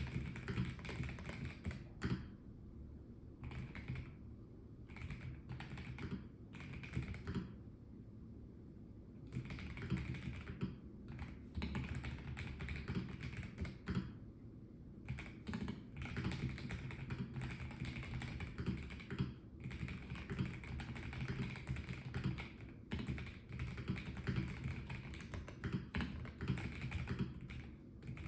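Typing on a Melgeek Mojo84 plastic mechanical keyboard. The keys clack in quick runs broken by short pauses.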